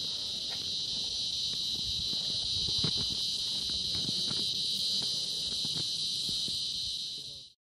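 Steady, high-pitched insect chorus, with faint, irregular low pops and rumbles beneath it; it fades out near the end.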